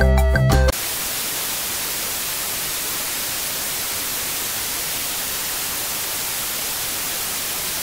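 Television static: a steady, even white-noise hiss. Background music cuts off under a second in.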